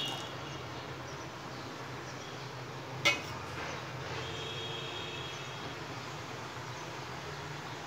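Steady hiss of a gas burner under a steel pot of simmering milk tea. About three seconds in, a single sharp metallic clink as the steel ladle is knocked against the pot or set down.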